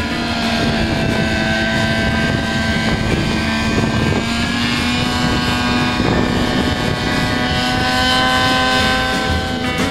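Thunder Tiger Raptor 50 model helicopter with a TT50 two-stroke glow engine, running steadily in a low hover with the rotor turning. Its pitch creeps up slightly as head speed is raised from about 1600 to 1800 rpm.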